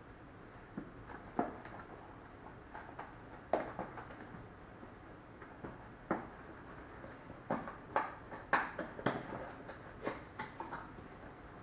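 A small cardboard accessory box being handled and opened on a hard countertop: irregular taps, knocks and scrapes of card and hands, busiest in the second half.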